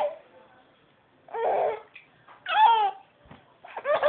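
Baby laughing in short, separate bursts with pauses between them, a longer laugh starting near the end.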